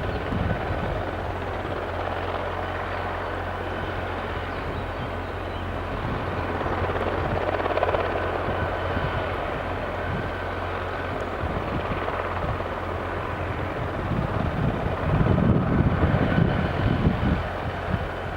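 Transport helicopter's rotors and turbine running steadily, a constant low drone. Near the end, gusts of wind buffet the microphone.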